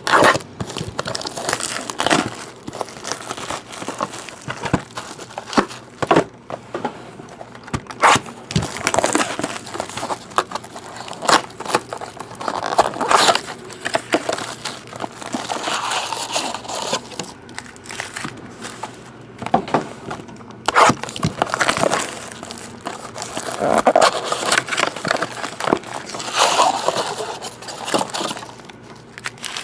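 Plastic shrink-wrap crinkling and tearing as sealed boxes of baseball cards are unwrapped and opened, with cardboard and foil card packs handled; irregular rustles and sharp crackles throughout.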